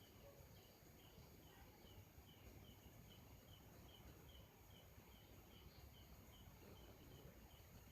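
Faint, even chirping from an unseen animal: a short, high chirp repeated about two and a half times a second over low background noise.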